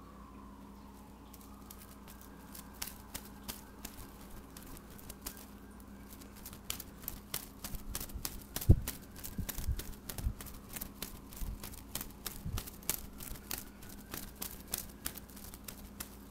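A cat playing with a feather wand toy: quick clicks, rustles and scuffs of feathers, paws and claws against a painted wooden cabinet top, starting a couple of seconds in. A heavy thump comes near the middle, followed by a few softer knocks.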